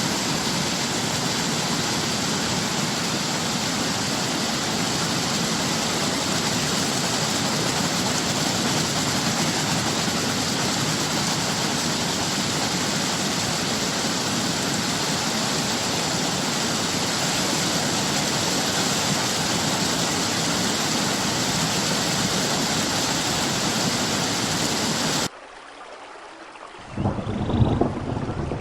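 Waterfall, a steady, dense rush of falling water. About 25 seconds in it cuts off abruptly to a quieter rumble, then a louder, uneven rush of water and wind takes over near the end.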